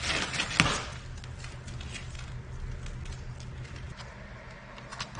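Plastic packaging crinkling for a moment at the start, with one sharp click, then scattered light clicks and taps over a low steady hum.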